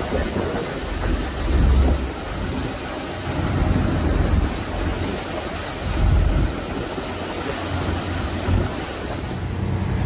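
Wind buffeting the microphone over the rush of churning sea and boat wake, with heavy gusts about two, four and six seconds in.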